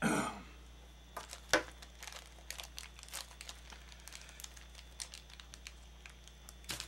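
Crinkling and small clicks of hands handling Kre-O Micro Changers toy packaging and small plastic parts over a paper instruction sheet, with a brief louder rustle at the start and one sharp click about a second and a half in.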